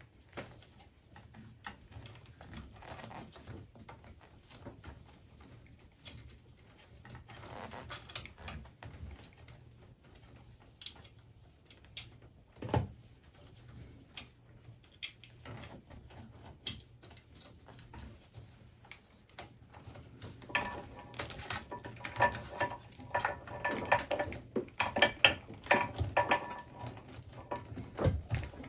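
Handling noise from wiring work on an electric scooter: wires and plastic connectors rubbing, scraping and clicking against the metal frame, with sparse clicks at first and busier light metallic clinking and rattling in the last several seconds.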